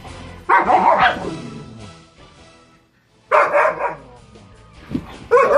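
Two dogs barking and snarling at each other in a fight over a bone, in three short loud bursts about half a second in, around the middle and at the end.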